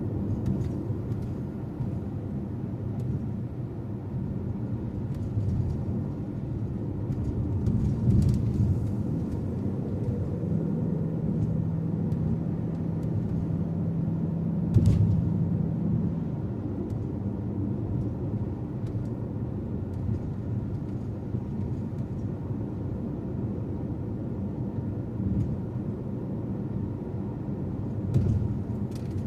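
Steady low road and engine rumble of a car being driven, with a steady low hum for several seconds near the middle and a few brief knocks.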